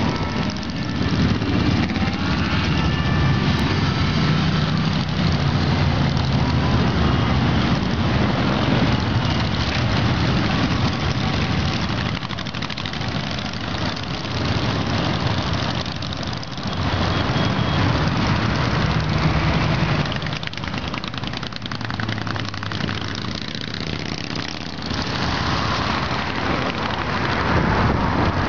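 A big group of motorcycles riding past in a long column, their engines blending into one steady, loud noise that dips somewhat around the middle as gaps open between the bikes.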